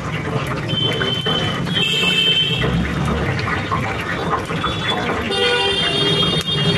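Momos deep-frying in oil in a wire basket, a steady sizzle and crackle. Vehicle horns sound over it: two short toots about one and two seconds in, and a longer honk near the end.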